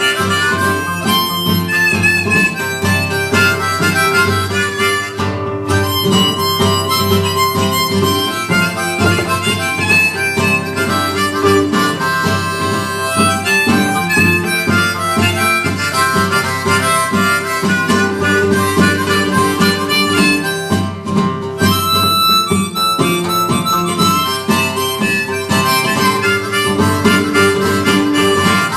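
Harmonica solo over strummed acoustic guitar in a live blues-folk song.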